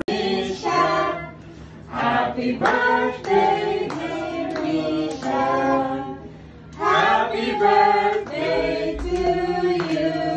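A group of people singing a birthday song together, in phrases with short breaks between the lines.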